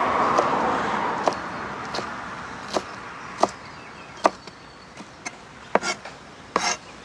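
Large kitchen knife chopping lettuce on a plastic cutting board: about ten sharp single chops at uneven intervals, two of them in quick succession near the end. A rushing noise fades away over the first two seconds.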